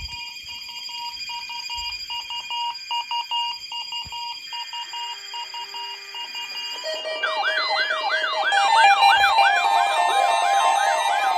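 Several electronic alarm tones sounding at once: steady high tones with a beeping tone near 1 kHz, then from about seven seconds in, fast up-and-down siren wails join and the sound gets louder.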